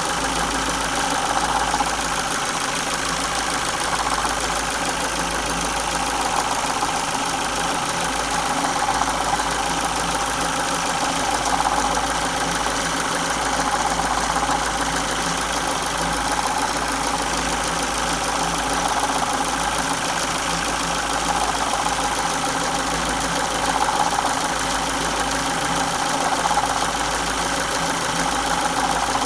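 Ford Focus Mk1 Sigma 1.6 four-cylinder petrol engine running steadily with a rattle, which the owner suspects comes from a failing timing belt tensioner.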